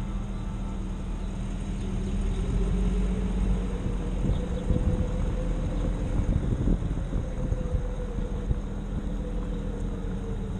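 Jeep driving slowly, its engine running with a steady low rumble and road noise, as picked up by a camera mounted on the outside of the vehicle; a few low thumps come through about halfway.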